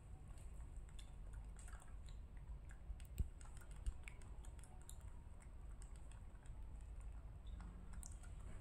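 Faint crunchy clicking of a young monkey chewing potato crisps, with two louder clicks about three and four seconds in.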